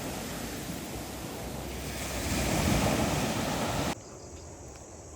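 Ocean waves breaking: a steady rushing of surf that swells about two seconds in, then cuts off abruptly near four seconds, leaving a quieter background.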